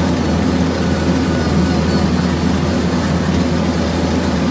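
Kubota MX4700 tractor's diesel engine running steadily under load while its six-foot Woods rotary cutter (bush hog) mows tall grass and brush, heard close from the driver's seat.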